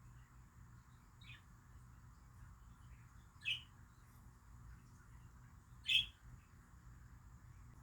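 Sleeping cat snoring, a short high squeak whistling through its nose on its breaths, three times about two and a half seconds apart, the first faint. A low steady rumble runs beneath.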